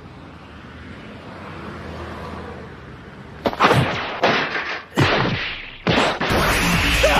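Dramatic anime soundtrack effects: a soft rushing noise swells and fades, then about five heavy impact hits land roughly a second apart, and music begins near the end.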